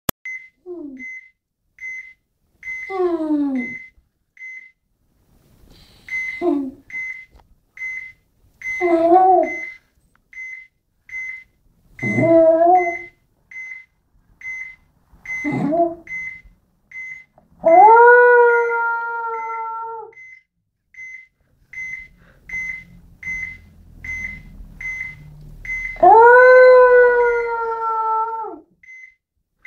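Jack Russell terrier howling: several short whining calls that slide down in pitch, then two long held howls that rise at the start and drop at the end. A short high beep repeats about twice a second throughout.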